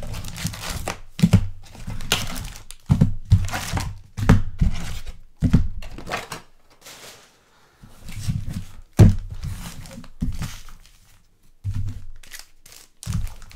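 Trading-card boxes and packs being handled on a table: crinkling and tearing of wrapping, with repeated thuds of cardboard being set down and a short lull about seven seconds in.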